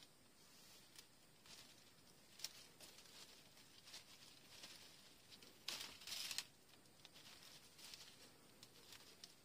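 Faint rustling of orange-tree leaves as fruit is picked by hand, with scattered small clicks and a louder, brief rustle about six seconds in.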